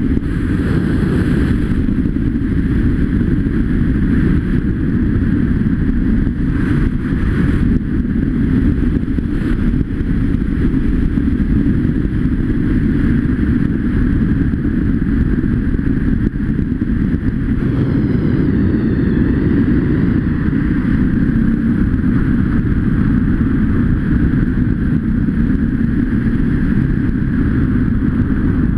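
Off-road motorcycle engine running steadily while riding along a dirt trail, heard from the rider's helmet camera as a heavy low rumble.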